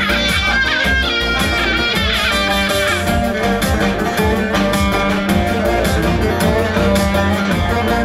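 Halay dance music: a plucked string instrument plays the melody over a steady beat and a held low tone.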